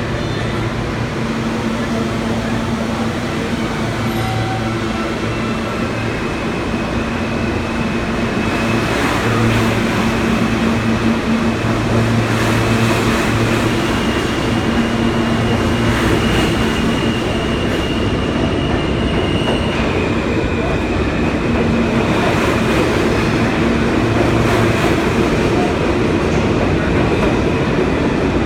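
R160 subway train running along the station platform: a steady rumble of wheels on rails with held motor whine tones that step in pitch a few times. It grows louder about a third of the way in.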